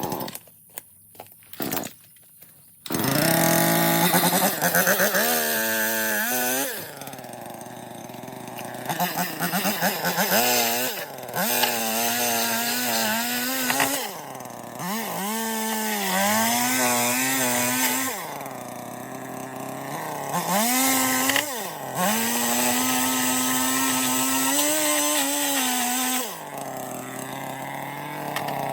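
A few clicks, then from about three seconds in a chainsaw running and cutting through rotten wood. Its engine speeds up under the cut and drops back several times.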